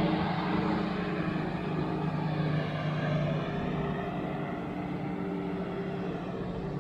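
Outboard motor of a small boat running on the river, a steady drone that grows a little fainter after about three seconds.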